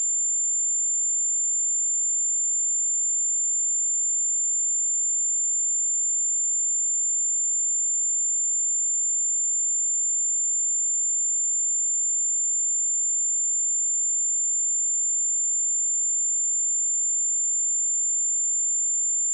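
A pure 7226 Hz sine-wave test tone, one high-pitched steady whistle held at constant pitch and level.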